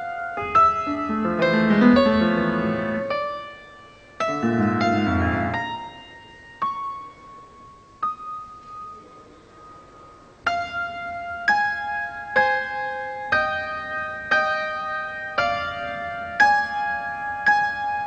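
Solo piano music. Full, loud chords come first, then a quiet stretch of a few single held notes, and from about ten seconds in a steady pattern of notes roughly once a second.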